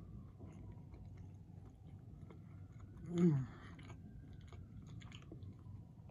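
Chewing food with the mouth closed, soft small wet clicks, with one short hummed "mmm" falling in pitch about three seconds in. A faint distant siren wails slowly up and down behind it.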